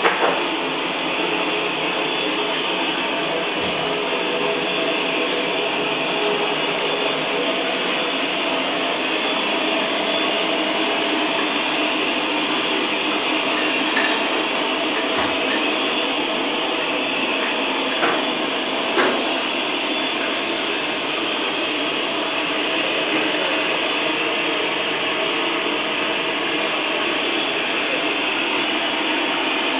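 Steady whirring drone of a running motor-driven blower, unbroken and even in level, with a few faint clicks partway through.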